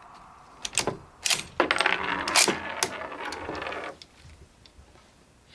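Metallic clicks and clinking as the Lee-Enfield No.4 Mk1's bolt is worked after a shot, with brass clattering and ringing. A sharp knock comes about a second in, then a quick run of clinks that dies away near four seconds.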